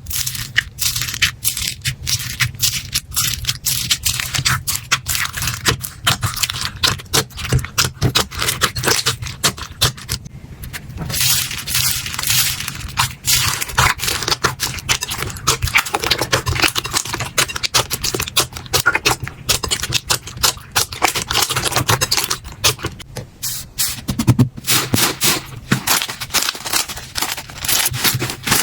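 Slime being squeezed and poked by hand close to the microphone: a dense, continuous run of sticky clicks and crackles, with a short lull about ten seconds in.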